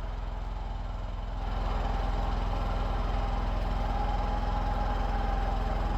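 An engine running steadily with a fast, even firing pulse, getting louder about one and a half seconds in, then cutting off abruptly.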